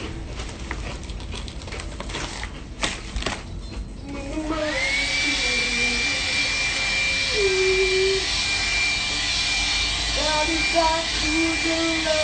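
Handheld hair dryer switched on about four and a half seconds in: its motor whine rises quickly to a steady high pitch over a steady rush of air, after a few handling knocks.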